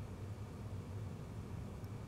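Steady low background hum with a faint even hiss; no distinct handling or tool sounds stand out.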